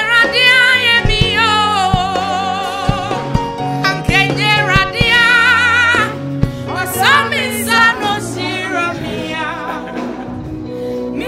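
A gospel song: a woman sings long, wavering held notes with strong vibrato and slides between pitches into a microphone. Steady instrumental accompaniment plays beneath her.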